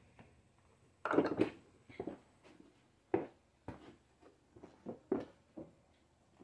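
Hand tools being picked up and set down: a brief clatter about a second in, then a series of short, light knocks and clicks.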